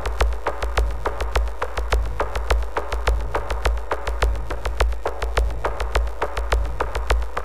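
Minimal electronic music: a repeating drum-machine pattern of sharp clicks, several a second, over a deep pulsing bass.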